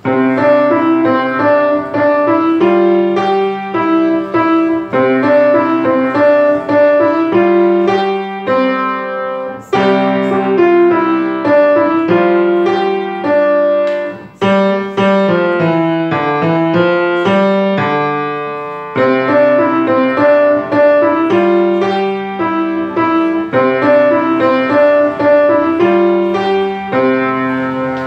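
Grand piano played solo: a melody over repeated lower chords, with a short break around the middle and a phrase that dies away before the tune starts again.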